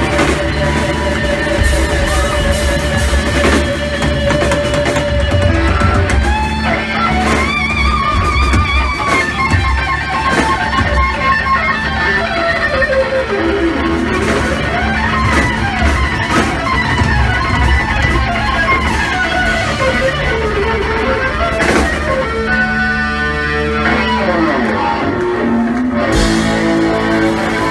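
Live rock band playing: drums, bass and keyboard under an electric guitar lead of long, wavering bent notes that slide up and down.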